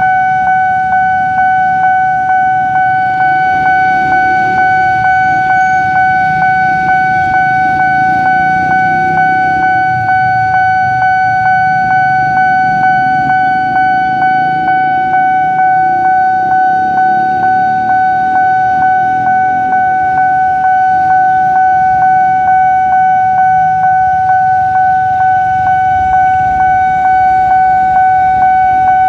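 Railway level-crossing warning bell ringing in a steady, even repeating rhythm on one high tone while the barrier is down, signalling that a train is approaching. Waiting motorcycles idle in a low rumble underneath.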